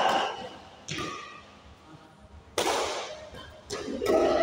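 Badminton rackets striking the shuttlecock during a doubles rally: four sharp smacks about a second apart, each ringing on in the hall's echo.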